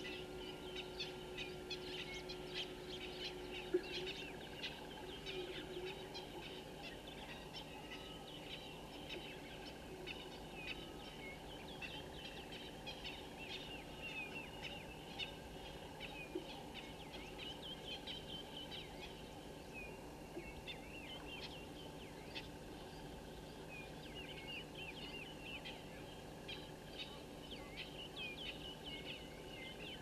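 Many birds chirping and calling together: a dense, continuous run of short, high chirps. A low steady hum sounds for the first few seconds and ends with a click.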